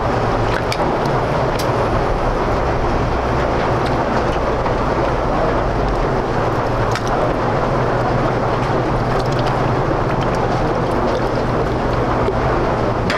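A loud, steady roar with a low hum underneath, with a few light clinks of a metal ladle against the steel stock pot and bowl as soup is dished out.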